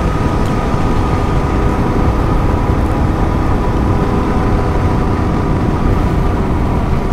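Royal Enfield Himalayan's single-cylinder engine running at a steady cruising speed, under heavy wind rush on the microphone.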